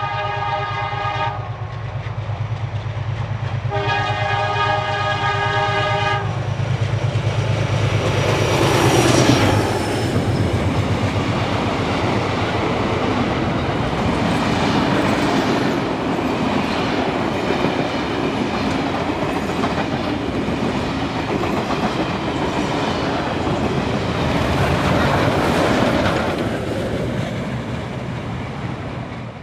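Beyer Garratt 6029 steam locomotive blowing its chime whistle twice: one blast ending about a second in, a second of about two seconds a few seconds later. The engine then passes close, loudest around nine seconds in, followed by its passenger carriages rolling by with clickety-clack over the rail joints, which fades as the train draws away.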